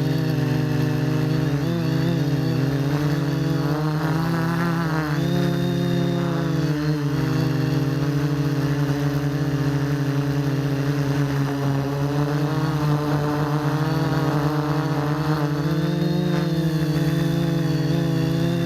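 RC quadcopter's electric motors and propellers buzzing steadily, the pitch wavering up and down a few times as the throttle changes.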